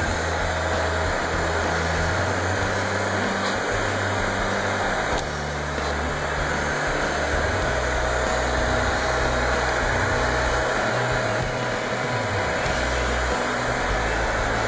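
Heat gun running steadily, a constant rush of air with a faint steady whine, blowing hot air onto vinyl film to soften it for stretching and tucking around a headlight.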